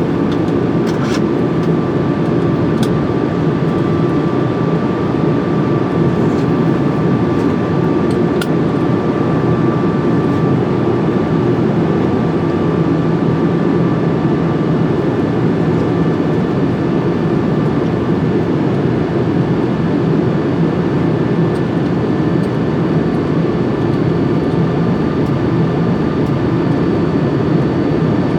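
Steady cockpit noise of an Airbus A380-800 on final approach with the landing gear down: a constant rush of airflow with a faint steady whine above it, and a few faint clicks in the first several seconds.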